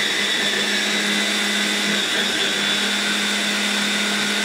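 Handheld stick blender with its mini chopper bowl running at a steady speed, a constant motor whine, grinding soaked quinoa and chia seeds into a dough.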